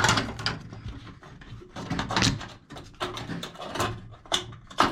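Irregular clicks, knocks and rustles of hands handling wiring and parts inside a fan coil unit, with the sharpest knock near the end.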